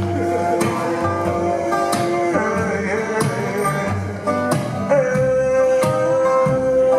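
A male singer sings into a microphone over a plucked upright double bass, holding two long notes, the second higher, starting about five seconds in.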